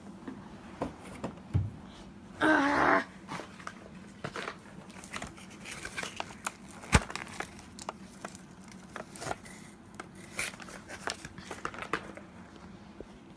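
Hands rummaging and handling cardboard and plastic packaging: crinkling, rustling and scattered clicks and knocks. About two and a half seconds in there is one brief, louder sound with a pitch to it.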